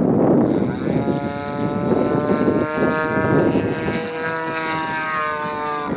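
Engine of a Seagull Edge 540 radio-controlled aerobatic model plane, a 30cc two-stroke petrol engine, droning in flight with its propeller. Its pitch rises and then glides down as the plane manoeuvres.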